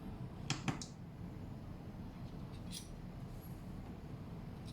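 Two light clicks about half a second in and a fainter one partway through: small taps of a spoon or container while yeast is portioned onto a kitchen scale, over a low room hum.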